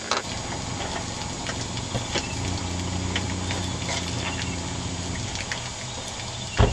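Water running steadily from the hoses of a fish-cleaning table, with a low hum swelling in the middle. Scattered clicks and knocks come from the knife and the coho salmon on the table, with one loud knock near the end.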